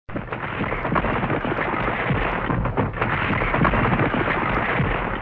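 Avalanche of sliding snow: a steady, dense rumble full of small crackles, starting abruptly.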